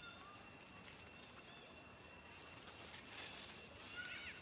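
Quiet outdoor ambience with a steady high-pitched drone. A brief rustle comes about three seconds in, and a couple of short, high, arching chirps follow near the end.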